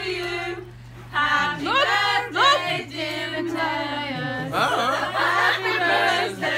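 Loud singing in several phrases with wide, swooping slides in pitch, a short pause about a second in, over a steady low hum.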